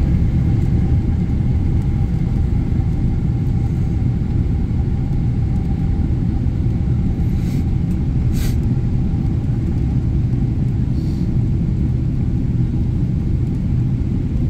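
Steady low rumble of a Boeing 777-300ER's cabin during descent, with airflow and GE90 turbofan noise heard from a window seat beside the wing and a faint steady hum over it. A couple of brief soft clicks come about halfway through.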